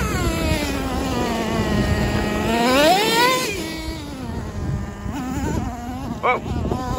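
Traxxas T-Maxx 2.5 nitro RC truck's small two-stroke glow engine running at high revs, its pitch dropping, climbing again about three seconds in, then falling as the truck drives over gravel. A couple of sharp knocks near the end.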